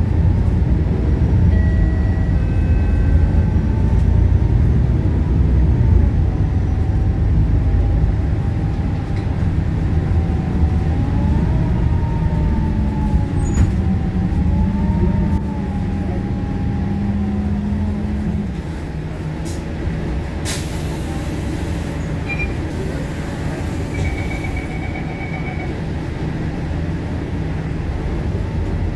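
MAN ND323F double-decker bus running, its diesel engine drone under a whine that rises and falls with speed. The sound eases off after about 18 s, a short air hiss follows a couple of seconds later, and near the end there is a short high beeping.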